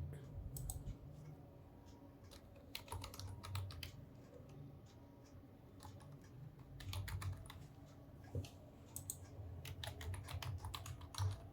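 Typing on a Dell KB216 chiclet-style keyboard: short runs of soft key clicks with pauses between them, the keys sounding smooth and light.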